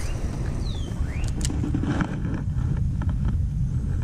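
Steady low rumble of wind buffeting the microphone, with a few sharp clicks in the first second and a half and a couple of short whistled chirps, one falling and one rising.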